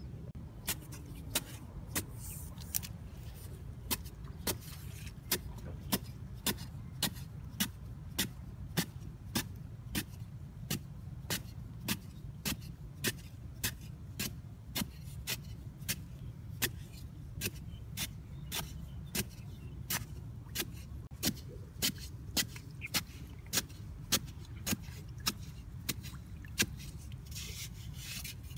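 A long-handled metal digging blade chopping into packed earth. There is a sharp strike about every three-quarters of a second, over a steady low rumble.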